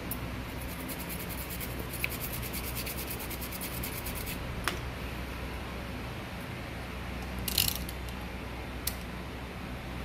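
A stiff-bristled brush scrubbing a laptop motherboard around a freshly soldered IC in rapid, even strokes for about four seconds, followed by a few light clicks and a short rustle. A steady low hum runs underneath.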